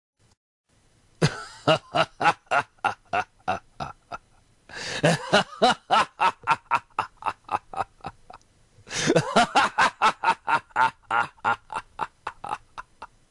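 A voice laughing in three long bouts of rapid, rhythmic 'ha-ha' pulses, each bout starting loud and tapering off.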